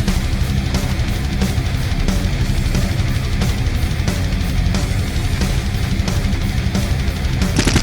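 Intro music: a heavy electronic track with distorted guitar and a steady driving beat.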